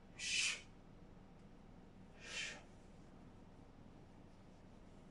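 A man's forceful exhalations with the effort of an oblique twist: one strong breath at the start and a softer one about two seconds in.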